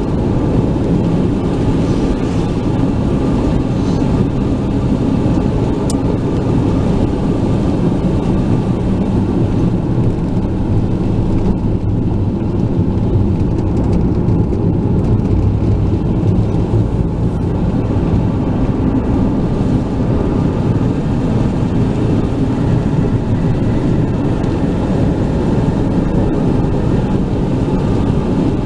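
Steady road noise inside a moving car: a deep, even drone of tyres on wet pavement and the engine, unchanging throughout.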